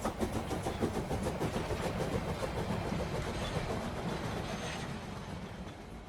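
Train running on rails: a steady noisy clatter of many short knocks that slowly fades away toward the end.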